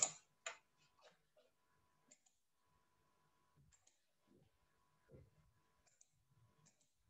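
Near silence, broken by two short clicks in the first half second and a few much fainter ticks and soft knocks further on.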